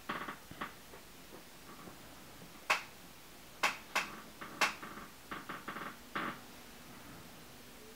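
A few sharp clicks and light taps at irregular intervals, the loudest bunched in the middle.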